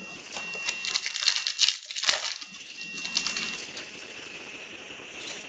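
Trading cards and crinkly foil pack wrappers being handled: a quick run of crackling and flicking in the first couple of seconds, then quieter rustling.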